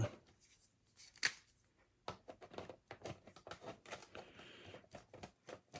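Faint handling noise of small parts being worked by hand: one sharp click about a second in, then a run of quick small clicks and taps, with a brief soft rustle a little past the middle.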